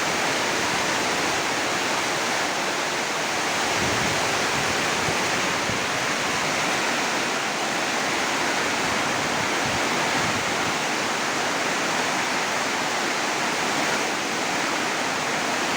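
Heavy rain pouring down in a steady, dense hiss, with a few low buffets of strong wind on the microphone about four seconds in and again near the middle.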